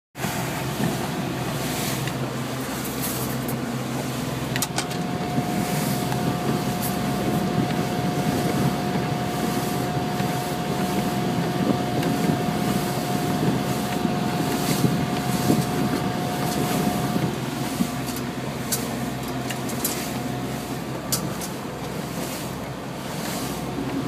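The engine of a 1975 26-foot Tollycraft cruiser running steadily under way through rough, choppy water, a dense even drone mixed with wind and water noise. A thin steady whine sits over it for about twelve seconds in the middle, and sharp ticks come now and then.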